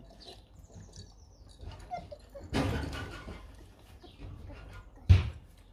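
A basketball bouncing on hard ground next door: one sharp, heavy thud near the end, with a shorter burst of noise about halfway through.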